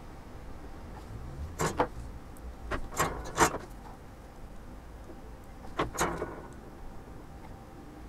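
A handful of short clicks and knocks from tools and small parts being handled during circuit-board work, the loudest about three and a half seconds in, over a faint low rumble.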